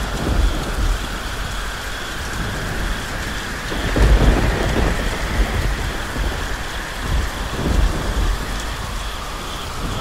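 Thunderstorm sound effect: steady rain with rolling thunder, the heaviest rumbles about four seconds in and again near eight seconds.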